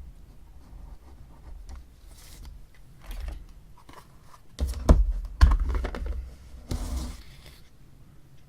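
Handling noises on a desk as a mechanical pencil is set on a scale to be weighed: light rustling and small clicks, with a few sharper knocks about five seconds in.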